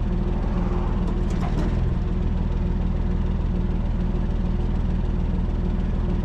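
Heavy-haul truck's diesel engine running steadily, with a short burst of noise about a second and a half in.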